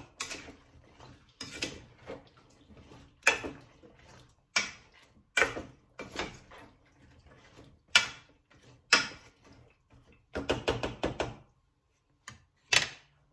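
A spoon stirring chopped vegetables and water in a non-stick saucepan. It scrapes and knocks against the pan about once a second, with a longer scrape just after ten seconds and two quick taps near the end.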